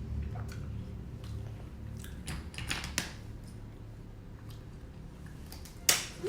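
A person eating steamed king crab: chewing and handling the crab, with scattered small clicks and one sharp click near the end.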